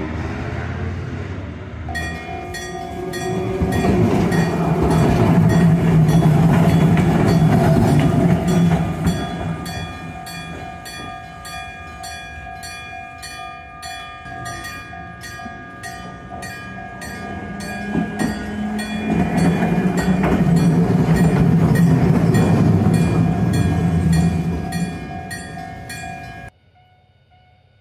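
Railroad level-crossing warning bell ringing in a steady, even rhythm while Randen streetcars run through the crossing. The trams' rumble of motors and wheels on the rails swells loudest twice, about four seconds in and again about twenty seconds in. The bell cuts off suddenly near the end.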